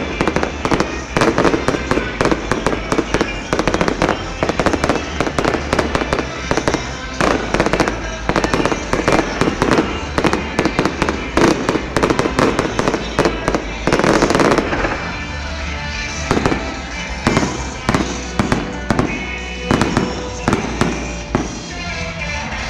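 Fireworks display going off in rapid succession: a dense run of bangs and crackles, with a longer crackling burst about two-thirds of the way through.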